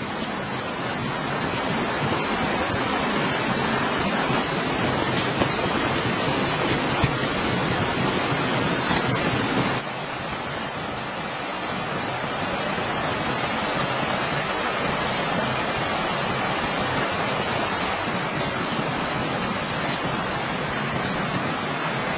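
Steady heavy rain, a dense even hiss with no pauses. The level drops abruptly about ten seconds in, then slowly builds again.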